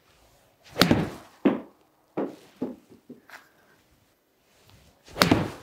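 Two wedge shots hit off a hitting mat into a simulator screen, about four seconds apart: each is a sharp club-on-ball strike with the ball smacking the screen, followed by a few lighter knocks.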